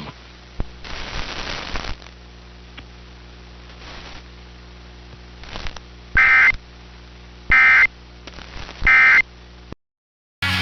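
Receiver static with a low buzz, then three short, loud bursts of warbling data tones a little over a second apart: the EAS end-of-message (EOM) tones that close the alert. The audio cuts off abruptly soon after the third burst.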